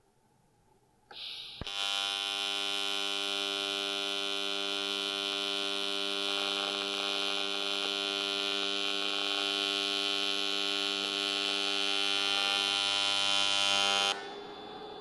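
AC TIG welding arc from a Lincoln Invertec V205-T welding cast aluminum. A brief hiss as the arc starts is followed by a steady buzz lasting about twelve seconds, which cuts off suddenly near the end and leaves a fainter hiss.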